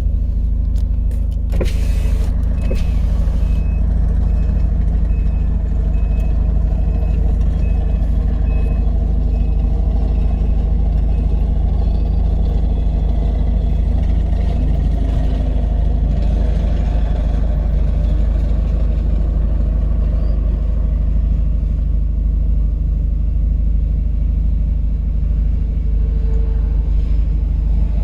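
Nissan Murano's 3.5-litre V6 engine idling steadily, heard from inside the cabin, with a faint repeating high beep in the first several seconds.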